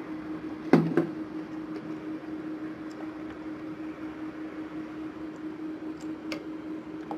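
White plastic spatula stirring thickening slime in a glass bowl, with one loud knock of the spatula against the bowl about a second in and a few light clicks later. A steady low hum runs underneath.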